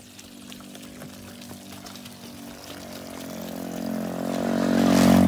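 A steady engine hum with an even pitch grows louder to a peak near the end and then begins to fade.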